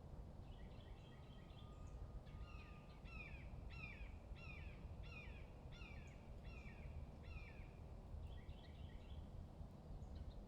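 A songbird singing faintly: a quick twittering phrase, then a run of repeated down-slurred notes about one and a half a second, then another quick phrase near the end, over a low outdoor rumble.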